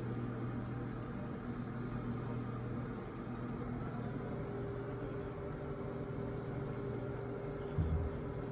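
Steady low machine hum with a few held tones, a higher one joining about halfway through, and a short low thump near the end.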